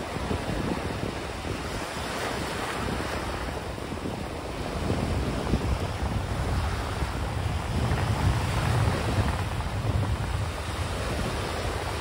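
Wind buffeting the microphone while cycling: an uneven low rumble over a steady rushing hiss, growing stronger about five seconds in.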